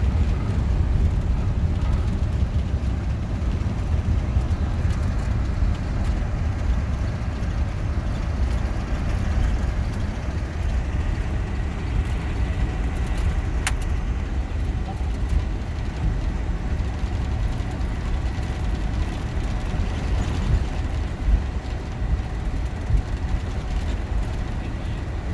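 Steady low rumble in the cockpit of a Boeing 747-400 during its landing rollout, the wheels running down the runway under the noise of the engines and airflow, easing slightly as the jet slows. A single sharp click about halfway through.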